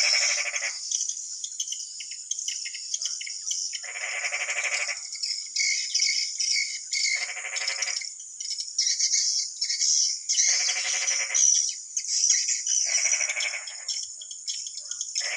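Swiftlet lure call: a continuous high twittering chirp of swiftlets with a frog's buzzing croak laid over it, repeating about every three seconds, six times.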